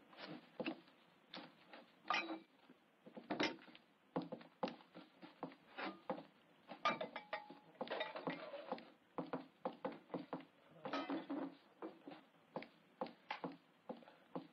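Kitchen clatter: crockery, pots and cutlery clinking and knocking as they are handled, in an irregular string of short knocks with a few brief scrapes.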